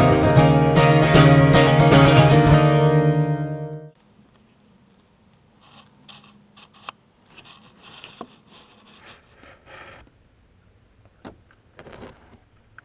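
Strummed acoustic guitar music, chords struck in a steady rhythm, fading out about four seconds in. After that come only faint, scattered soft knocks and rustles.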